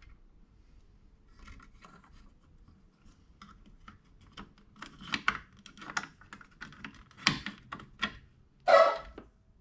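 Scattered light clicks and rattles of hands handling the gauge wiring and plastic parts at an air-cooled Porsche 911's dashboard. The clicks grow more frequent about halfway through, and there is a louder scrape near the end.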